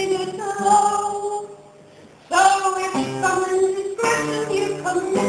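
A woman singing a folk song to her own acoustic guitar, breaking off briefly about a second and a half in before the next line.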